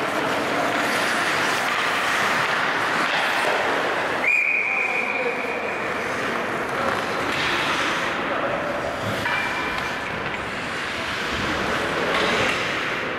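Ice hockey game noise of skates and sticks on ice, with a referee's whistle blowing one long steady blast about four seconds in that stops play. A shorter whistle follows about nine seconds in.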